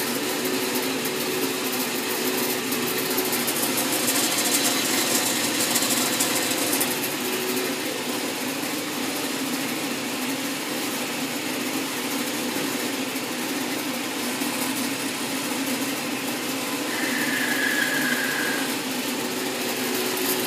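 Horizontal metal-cutting band saw running and cutting through a steel bar clamped in its vise: a steady machine hum with the hiss of the blade in the metal. A brief high whine comes in about seventeen seconds in.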